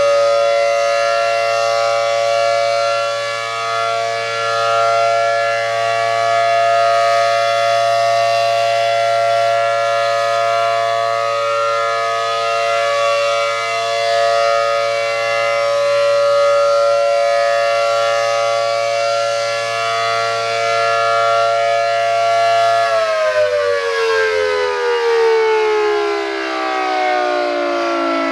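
Rotating ACA Allertor 125 10/12-port electromechanical outdoor warning siren sounding its steady full-alert chord, the level swelling and fading slightly as the head turns. About 23 seconds in, power is cut and the chord falls steadily in pitch as the rotor winds down.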